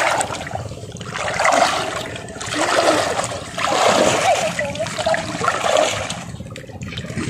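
Shallow seawater sloshing and splashing around people wading and working their hands in it, rising and falling in several surges.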